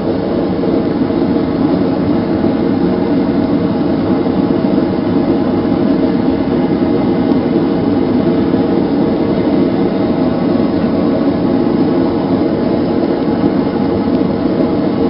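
Gas forge burner running steadily with a continuous rushing burn. It is the naturally aspirated burner, fed by an open air-intake pipe in place of a blower.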